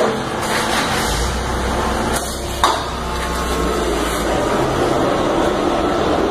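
Two sharp knocks, one right at the start and one about two and a half seconds in, the second ringing briefly. Under them runs a steady mechanical hum with a low rumble.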